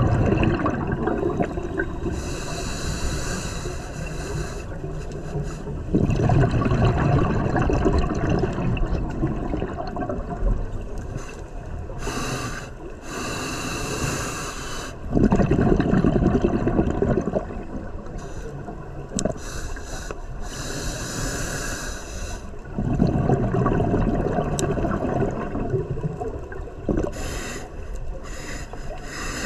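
A scuba diver breathing through a regulator underwater: a high hissing inhale, then a low rush of exhaust bubbles, repeating about every eight seconds for four breaths.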